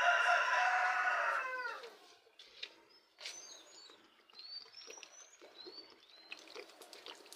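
A rooster crowing once, a loud call of about two seconds that drops in pitch at the end, followed by a series of short, high, rising chirps from small birds.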